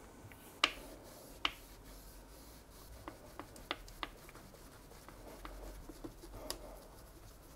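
Thin plastic polarizing film being handled and pressed onto a resin printer's LCD screen: a few sharp clicks and ticks from the film, the two loudest in the first second and a half, over faint rubbing as a microfiber cloth smooths it down.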